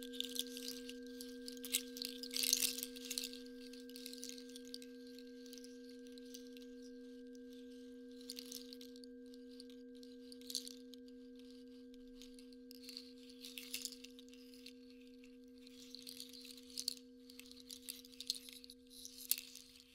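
A long, steady ringing tone from a sound-bath instrument, one low pitch with fainter higher overtones, slowly fading and dying away just after the end. Soft rattling swishes come and go over it every few seconds.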